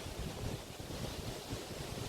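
Waves washing onto the shore of the Río de la Plata estuary, with wind buffeting the microphone in uneven low gusts.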